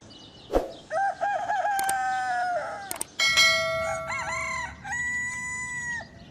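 Roosters crowing: three long crows one after another, each at a different pitch, with a sharp click just before the first.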